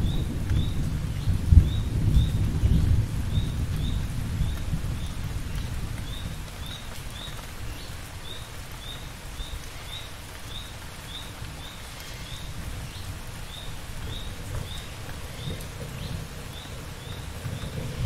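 Steady rain with a rumble of thunder, loudest in the first few seconds with a sharper peak about a second and a half in, dying away by about six seconds in. A short high chirp repeats about twice a second, in runs with brief pauses.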